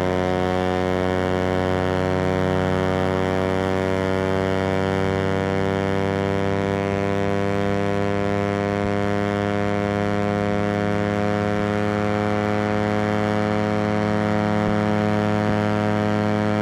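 Suzuki GSX-R150's single-cylinder engine running at speed with a steady, unchanging pitch, a constant drone with no rises or drops.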